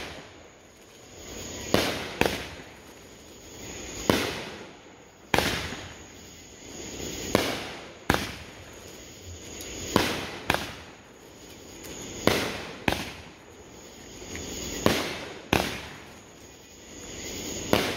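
World Class 'Goonies' 500 g 12-shot fireworks cake firing its shots. A sharp bang comes every two to three seconds, mostly in close pairs, with each report fading out before the next.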